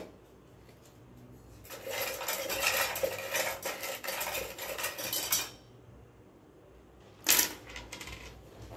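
Small plastic alphabet letters rattling as they are shaken for about four seconds, then a short sharp clatter as they are tossed out onto a wooden table.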